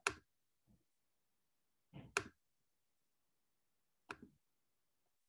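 Three short, sharp clicks about two seconds apart, with quiet in between, as a computer mouse is clicked.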